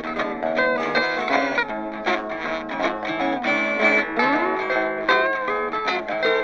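Background music led by guitar, with quick plucked notes and a pitch slide.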